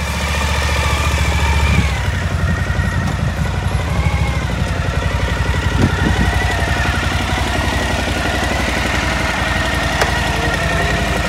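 Motorcycle engine running as the bike rolls in at low speed, heavier for the first couple of seconds, then settling to a steady idle.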